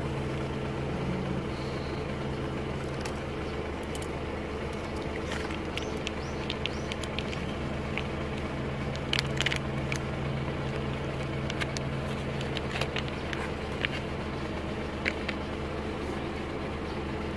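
A steady low mechanical hum, with scattered short sharp clicks and crunches from cats eating dry food off plates on the pavement.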